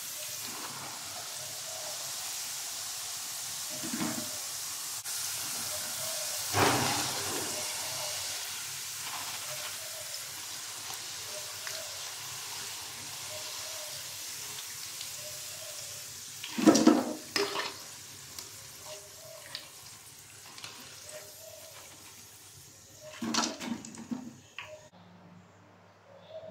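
Crinkle-cut potato fries sizzling in deep hot oil, a steady hiss that fades toward the end as the fries are lifted out. A few short clanks and scrapes of a stainless wire-mesh strainer against the pan break through, the loudest a cluster a little past halfway.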